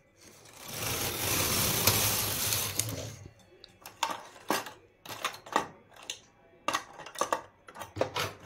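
Carriage of a hand-operated flatbed knitting machine pushed across the needle bed, a rattling rush lasting about two and a half seconds as it knits a row. It is followed by a string of separate sharp clicks and knocks.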